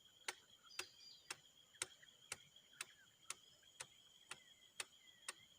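Faint, even ticking, about two ticks a second, over a steady high-pitched whine.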